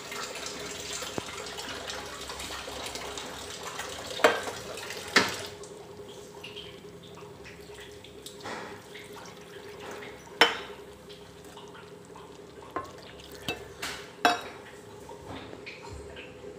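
Vadacurry bubbling in a pan, just after roasted-gram paste was stirred in. A wooden spatula knocks against the pan several times, loudest about four, five, ten and fourteen seconds in.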